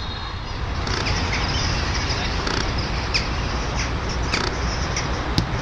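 Outdoor ambience at a football pitch: a steady background rumble with a few brief high-pitched chirps scattered through it, about three, four and a half and five and a half seconds in.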